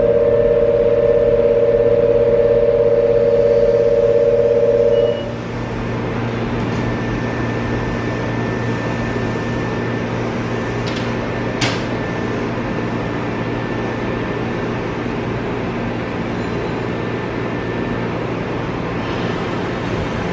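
Platform departure signal: an electronic two-tone buzzer rings steadily for about five seconds and cuts off sharply. A steady low station and train hum follows, with one sharp click near the middle.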